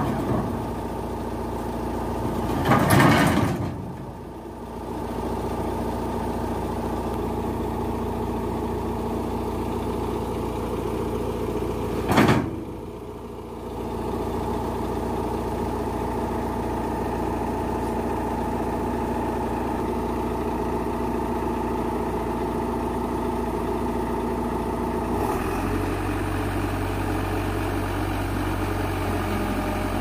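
Heavy engine idling steadily. Two loud metal clanks come about three and twelve seconds in, from steel loading ramps being handled. Near the end the engine note changes, with a deeper hum growing stronger.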